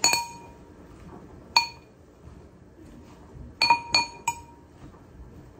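A metal spoon clinking against a dish, each strike ringing briefly: one at the start, one about a second and a half in, and a quick run of three or four close together near four seconds in.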